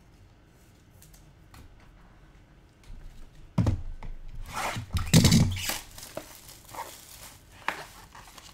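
Packaging being handled and torn open by hand: crinkling and tearing, loudest about halfway through for a couple of seconds, with soft clicks and rustles before and after.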